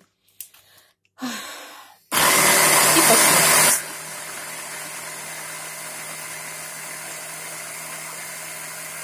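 Electric blender switched on about two seconds in, blending cut aloe leaves with honey: loud for about a second and a half, then settling to a much quieter steady motor run with a constant hum.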